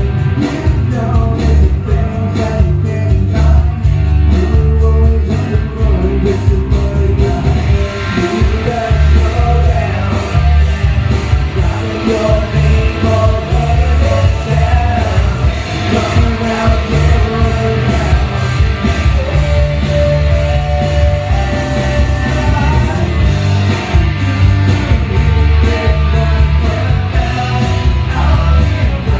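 A rock band playing live: a man singing over electric and acoustic guitars and drums keeping a steady beat. The band gets fuller, with more cymbal wash, about eight seconds in.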